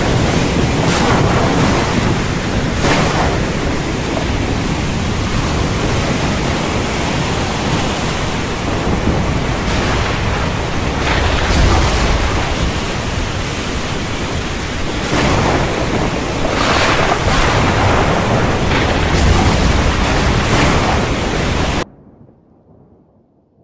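Heavy thunderstorm: a dense, steady rush of wind and rain, broken by repeated thunder cracks and deeper rumbles, that cuts off suddenly near the end.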